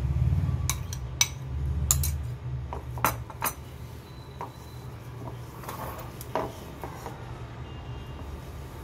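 A metal spoon clinking and scraping against a small glass bowl, with several sharp clinks in the first three and a half seconds. After that come softer sounds of hands mixing the ground mutton mixture on a glass plate, over a steady low hum.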